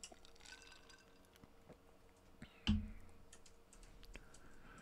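Faint, scattered clicks and taps of a computer keyboard and mouse at a desk, with one louder dull thump nearly three seconds in.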